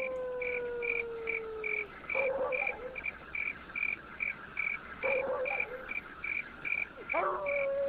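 Crickets chirping in a steady rhythm, about two to three chirps a second, over a faint steady drone that slowly drops in pitch.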